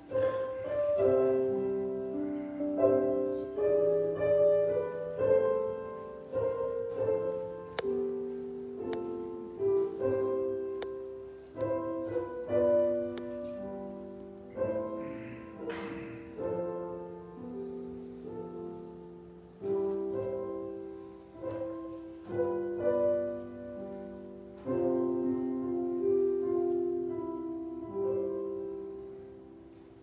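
Solo piano playing a slow piece in sustained chords, fading out near the end.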